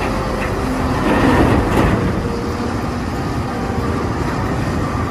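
Caterpillar 992G wheel loader's diesel engine running heavily as it dumps a bucket of dirt into a dump truck, with a louder rush of pouring material a second or so in.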